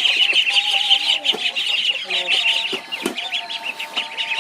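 A brood of young poultry chicks peeping rapidly and continuously, high-pitched, with some lower clucking notes among them.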